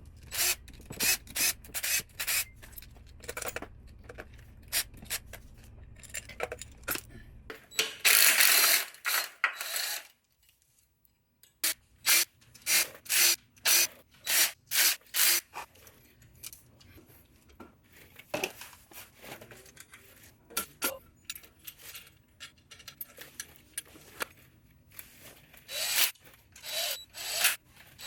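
Hand tools working on motorcycle engine parts: a string of short clicks, taps and scrapes, with a longer rasping scrape about eight seconds in and a quick, even run of clicks a few seconds later.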